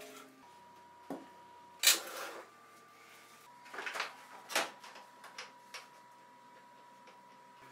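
Plastic body panels and the engine cover of a lawn tractor being handled. A sharp knock comes about two seconds in, then a cluster of clunks and rattles around four seconds in as the engine's plastic cover is lifted off, followed by a few light clicks.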